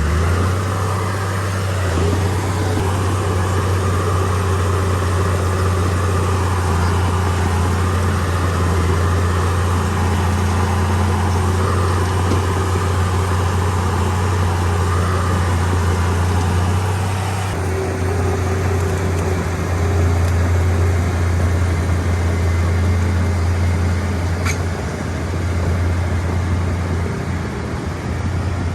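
Bulldozer's diesel engine running steadily at a constant low pitch. The sound abruptly turns duller a little past halfway, and there is a single sharp click near the end.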